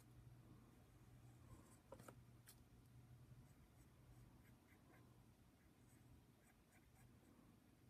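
Faint scratching of a pen drawing short strokes on paper, over a low steady hum.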